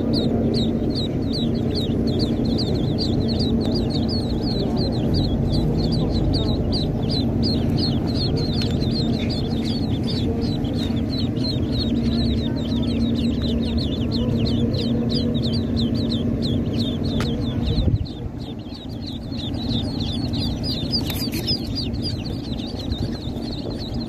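A crowd of baby chicks and ducklings peeping: rapid high, falling peeps several times a second, over a low rumble and a steady low hum that drop away about three quarters of the way through.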